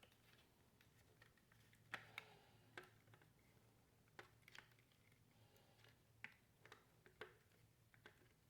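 Near silence with faint, scattered clicks and taps of hard plastic being handled, as a battery is worked into the battery mount of an LED light panel with some difficulty.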